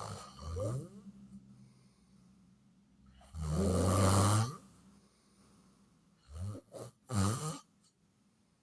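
A person snoring: one long, loud snore about three seconds in, then a few shorter snores near the end.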